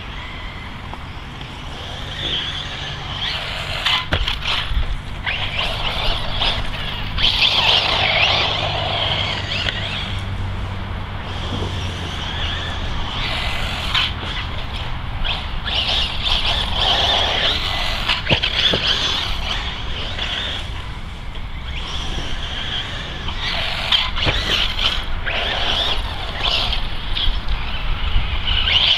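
Motor and drivetrain of a Losi 8IGHT-E 1/8-scale electric RC buggy whining, rising and falling as it speeds up and slows down, with occasional sharp knocks from landings off jumps.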